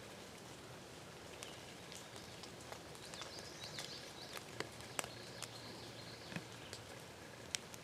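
Faint outdoor ambience with distant songbirds chirping and a few sharp ticks, the loudest about five seconds in and near the end.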